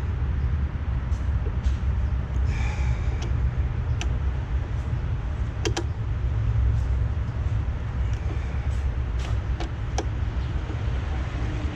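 A breaker bar with an 18 mm socket being worked on an engine mount bolt. It gives several separate sharp metallic clicks and knocks, over a steady low rumble.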